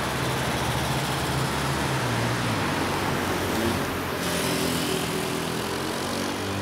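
Road traffic: the steady hiss of a car's engine and tyres, with an engine note climbing in pitch about halfway through as a vehicle accelerates.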